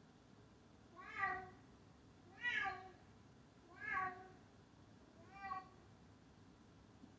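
Recorded cat meows played from an Alexa smart speaker: four meows about a second and a half apart, the last one quieter.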